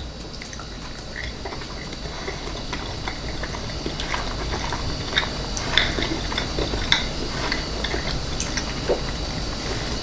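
A person biting into and chewing a chicken burger sandwich: irregular small wet clicks and smacks of chewing, slowly getting louder.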